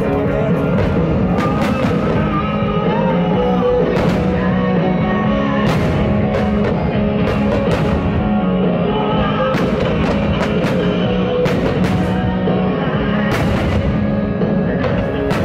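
Loud rock music with guitar and drums, the show's synchronised soundtrack. A few sharp cracks of bursting firework shells break in at irregular moments.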